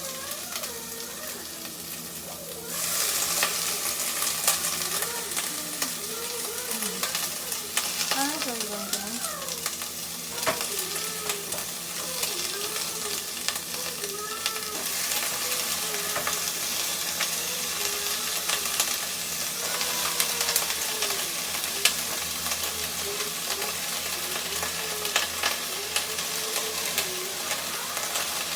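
String beans, still wet from washing, frying in hot oil with garlic and red onions in a pot: the sizzle jumps up sharply about three seconds in as they go in, then stays steady while they are stirred, with a few knocks of the utensil.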